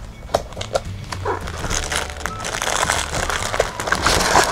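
Paper and packaging rustling and crinkling as items are handled, with scattered light taps; the rustling grows louder toward the end.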